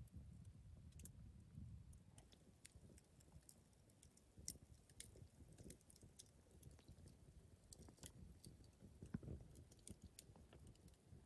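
Firewood crackling in a small steel box camp stove: faint, sparse, irregular pops and snaps over a low rumble.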